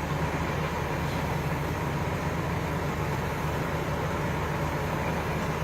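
Engine running steadily with a constant low hum, no change in speed.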